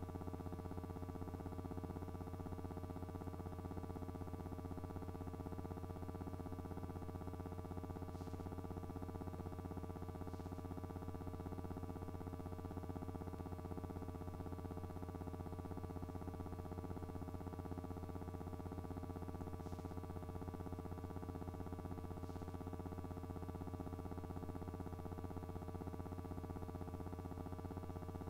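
Steady, unchanging low electrical hum with several fixed overtones, with four faint ticks spread through it.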